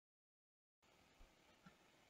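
Near silence: dead digital silence, then a very faint room hiss from under a second in.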